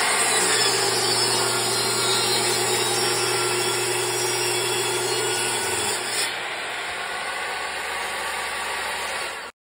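SKIL jobsite table saw ripping a long softwood board lengthwise, the spinning blade cutting steadily through the wood. About six seconds in the sound drops and changes, then cuts off suddenly near the end.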